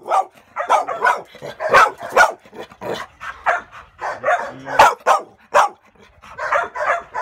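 Pit bull barking over and over, about two short, sharp barks a second, with a brief lull about six seconds in.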